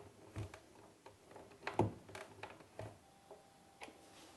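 Light, irregular knocks and clicks from handling a washing machine door and its hinge while the door is refitted, the clearest about two seconds in.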